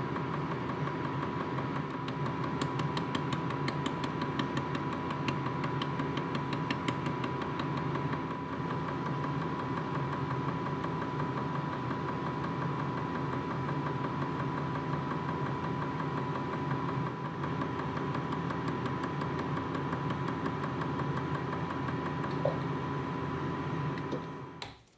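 A small electric workshop machine running steadily with a hum, a steady whine and a faint high tone, then switching off abruptly near the end.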